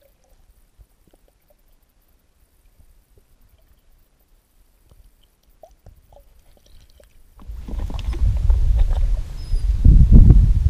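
A few faint soft clicks over near quiet from an underwater camera. About seven and a half seconds in, a strong, gusting low rumble of wind buffeting the camera microphone takes over and is loudest near the end.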